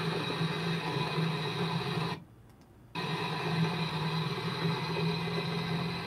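Acaia Orbit coffee grinder's motor running at its espresso setting, a steady mechanical hum played back through a screen's speakers. The sound cuts out abruptly for under a second about two seconds in, then carries on.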